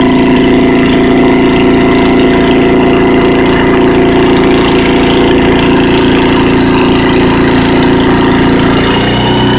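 Engine-driven hydraulic system of a homemade water well drill rig running steadily and loudly. Its note changes near the end as the load or flow shifts.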